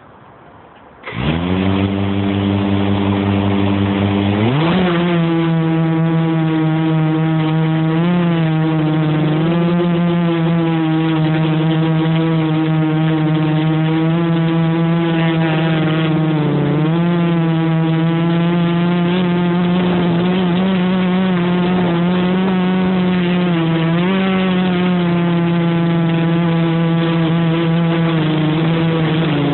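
Quadcopter's electric motors and propellers spinning up about a second in, rising sharply in pitch around four seconds in as it lifts off, then a loud steady buzzing hum whose pitch dips and rises slightly with throttle changes.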